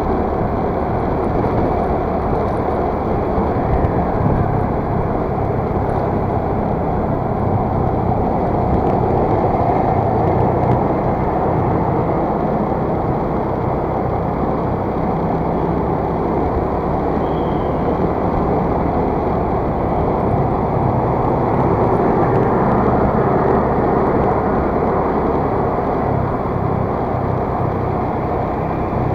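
Motor scooter riding along a city street: steady wind and road noise over the small engine running at an even cruising pace.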